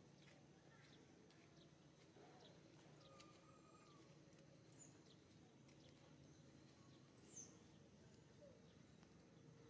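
Near silence: faint outdoor ambience with a low steady hum and scattered faint bird chirps, one sharper falling chirp about seven seconds in.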